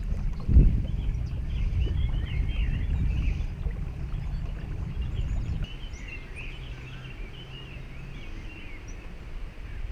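Electric trolling motor humming as the small boat moves along the river, dropping to a quieter hum about halfway through. Birds chirp throughout, and a low thump comes about half a second in.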